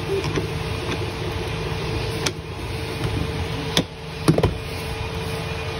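Light clicks and knocks of 3D-printed plastic robot-arm parts being handled and fitted together, three in all, the loudest a brief double knock about four seconds in, over a steady background hum.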